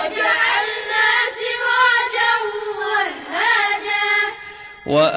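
Children's voices chanting Quranic recitation in Arabic, a melodic murottal line with long drawn-out, wavering notes.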